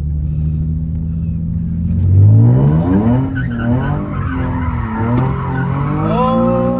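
Nissan 350Z's 3.5-litre V6 revving hard for a donut. The revs climb about two seconds in and swing up and down, and the tires squeal near the end.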